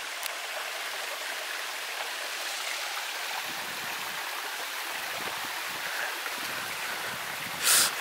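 Creek water running over rock at a small waterfall: a steady, even rush of water. Near the end a short, louder burst of noise cuts in briefly.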